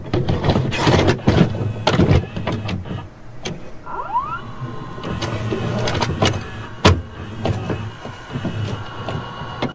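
VCR loading a VHS cassette: a run of plastic and mechanical clicks and clunks, a motor whirring, and a brief rising whine about four seconds in.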